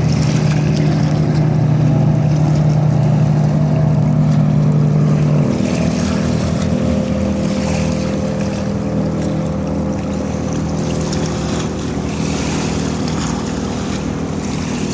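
A fast motorboat's engine running at speed as the boat passes along the river, a steady, loud drone. About five and a half seconds in, the deepest part of the engine note drops away while higher engine tones carry on, with water and wind hiss.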